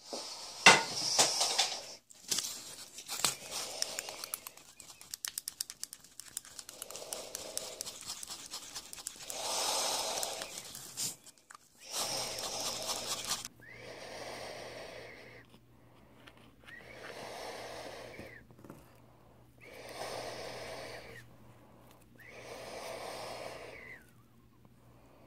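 Close breathing near the microphone in slow, even cycles about every three seconds, over a low steady hum. Before that come irregular clicks and scraping from handling things at the workbench.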